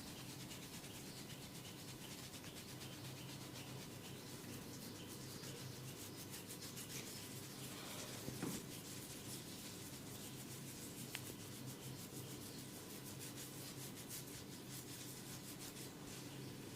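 Close-miked massage rubbing on skin and hair: a steady scratchy rasping made of many quick strokes, over a faint steady hum.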